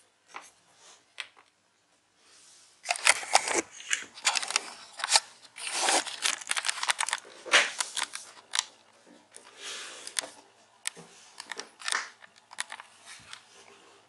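Close, irregular handling noise from a laptop being turned over, opened and moved about on a desk: scratchy rustling with many sharp clicks and knocks. It starts about three seconds in and goes on in fits until near the end.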